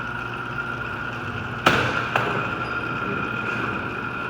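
Allstar garage door opener motor running with a steady whine as the Wayne Dalton overhead door travels. A little under two seconds in there are two sharp knocks, about half a second apart.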